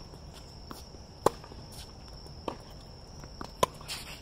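Tennis rally on a hard court: a few sharp pops of the ball off racket strings and the court, the loudest about a second in and again near the end, over a steady high chirring of crickets.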